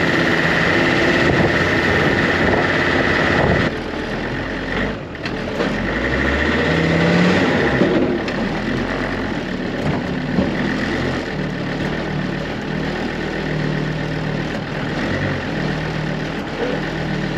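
Off-road race car's engine running as it drives along a lane. After a break about four seconds in, it idles and creeps forward at low speed as it is driven up onto a flatbed trailer.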